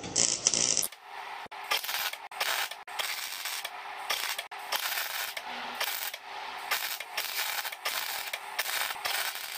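MIG welding arc crackling on steel tube. After a cut about a second in, it runs in short bursts, stopping and restarting several times.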